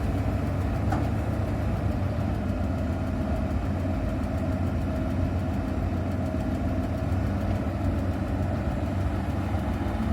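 Heavy diesel engines of a hydraulic excavator and the waiting ten-wheel dump trucks running at a steady pitch.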